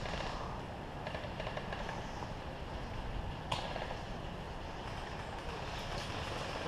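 Steady outdoor background noise with rustling, and one short sharp click or crack a little past halfway through.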